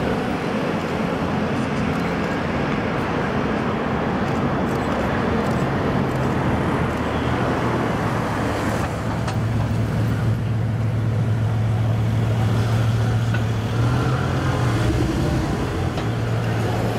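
Slow city traffic with a Bugatti Veyron and other cars crawling past close by. A steady low engine drone sets in about nine seconds in and holds.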